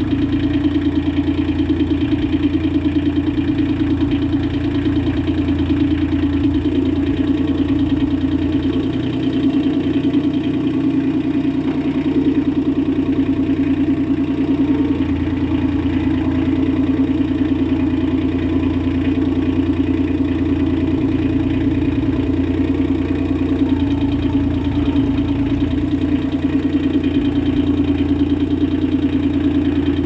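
An engine running steadily at a constant speed, with no change in pitch or level.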